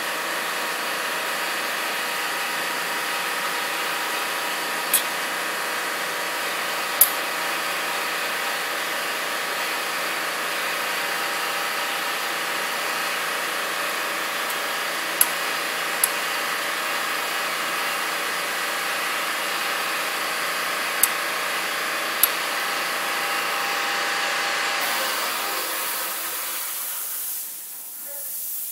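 Air compressor running steadily, then shutting off near the end with a short hiss of air. Over it come six sharp clicks in three pairs, from a hand rivet squeezer closing Springback dimple dies on thin aluminium skin.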